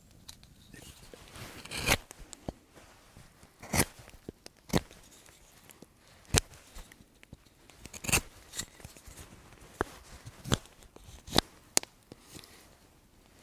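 Knife blade shaving and scraping a small wooden board, trimming off loose splinters, in about ten separate short cuts spaced irregularly about a second apart.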